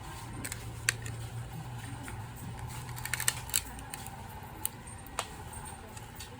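A handful of sharp clicks and taps, a cluster of them about three seconds in, over a steady low hum: small tools and parts being handled during work on a phone.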